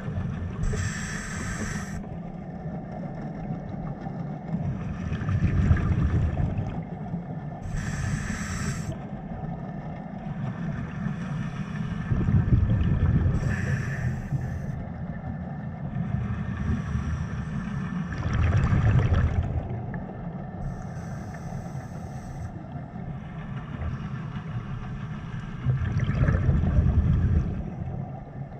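Scuba diver breathing through a regulator underwater: a short hissing inhalation every few seconds, alternating with the louder low rush of exhaled bubbles.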